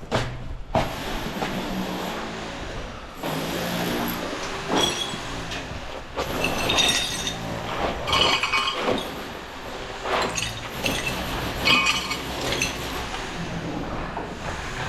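Repeated metallic clinking and rattling over the steady hum of a running engine, with the loudest clinks about 7, 8 and 12 seconds in.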